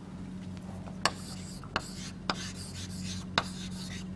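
Writing by hand: scratchy strokes broken by about six sharp taps, over a steady low electrical hum.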